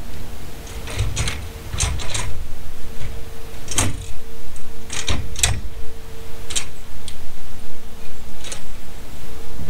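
Irregular clicks and knocks of an aluminium-framed solar panel and its mounting hardware being handled and set onto roof-rack crossbars, over a steady low rumble.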